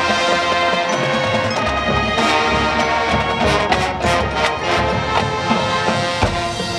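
Marching band playing live: held brass chords with sharp percussion hits over them.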